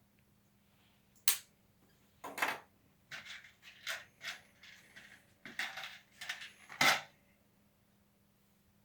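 Plastic LEGO Technic pieces clicking and rattling as they are handled and snapped together: a couple of single sharp clicks, then a busy run of clicks and rattles from about three to seven seconds in.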